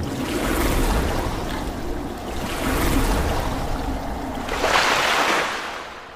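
Water splashing and surging sound effects in three swells, the third the loudest and brightest, about five seconds in, then fading away. This is the sound design of an animated water-splash logo intro.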